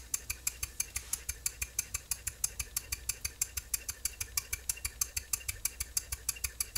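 H. E. Boucher S62 two-cylinder marine steam engine running slowly at about 2 psi, with an even, quick ticking of about seven beats a second. There is a little squeaking, whistling sound from its exhaust.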